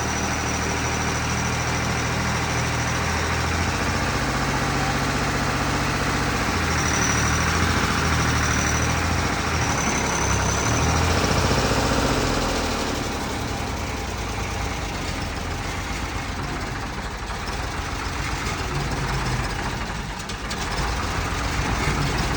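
A vehicle engine running steadily, its note changing about halfway through.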